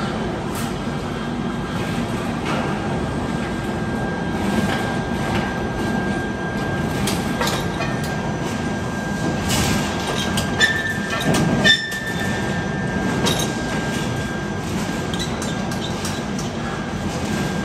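Concrete pipe reinforcement cage welding machine running: a steady mechanical drone with a constant high whine and scattered clicks, and a few brief, sharper and louder snaps a little past the middle.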